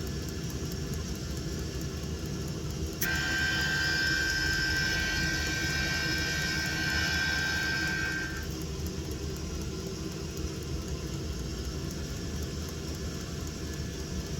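Chinese diesel air heater running, with a steady low combustion rumble. About three seconds in, a high whine with hiss comes in suddenly and holds for about five seconds before it stops.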